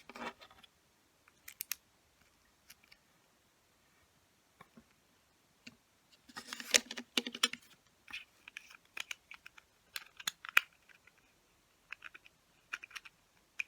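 Small hard plastic model-kit parts clicking and tapping against each other as they are handled and pushed together, in scattered runs of sharp clicks, busiest around the middle.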